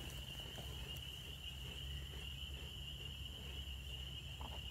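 Steady chorus of night insects: an unbroken high-pitched trill, with a low steady hum underneath.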